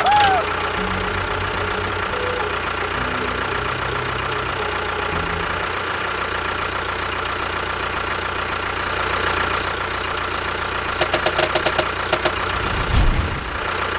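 Steady engine-like running of a homemade model construction vehicle's motor, with a quick run of sharp clicks about eleven seconds in and a low thump shortly after.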